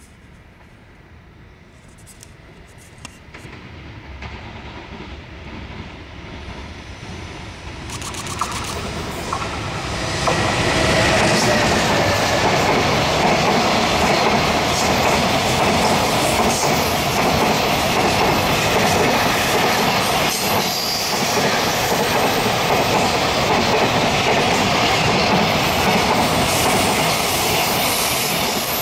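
Freight train approaching, growing louder over about ten seconds, then a long string of Koki container wagons behind an EF210 electric locomotive running past at speed, a steady loud rush of wheels on rails.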